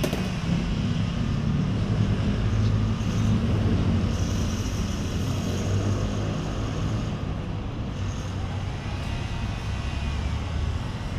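Airplane engines heard as a steady low rumble with a hiss over it, swelling slightly in the first few seconds.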